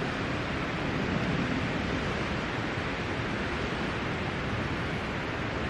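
Steady rush of wind on the microphone mixed with waves washing against a rocky shore.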